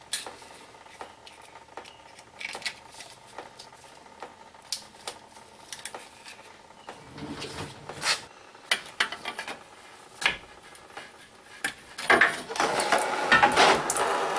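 Scattered small metal clicks and scrapes as a pick tool works the spring clip off the bottom transmission cooler line fitting on an Allison transmission, with a denser run of clinking and scraping near the end.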